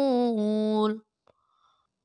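Quran recitation: a single voice chanting the word 'ar-rasul' in tajweed style, one drawn-out melodic note that steps down in pitch and breaks off about a second in.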